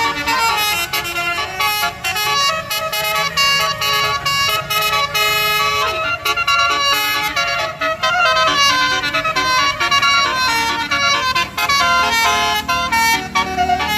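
Basuri telolet horn, a multi-trumpet electric vehicle horn, playing a fast tune of loud horn notes one after another without a break.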